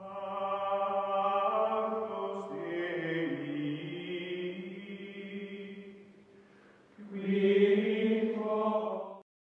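Outro music of long, held choir-like voices: one phrase that slowly fades, then after a short pause a second, louder swell that cuts off suddenly near the end.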